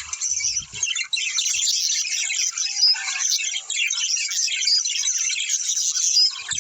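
Many small birds chirping and chattering together, with overlapping short high calls and whistles in a continuous chorus.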